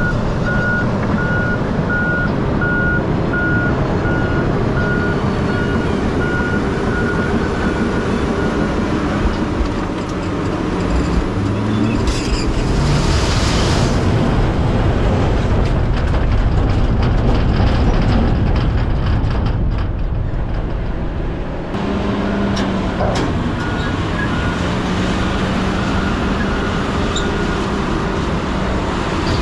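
Roll-off truck's diesel engine running hard as the container is tipped and a load of scrap lumber and debris slides out, with a burst of clattering and rushing noise about halfway through. A reversing alarm beeps steadily for the first several seconds and again near the end.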